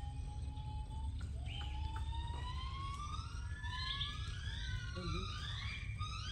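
A chorus of overlapping calls in the mangrove forest, each a rising, siren-like whistle of a second or two, growing denser in the second half, over a steady low rumble.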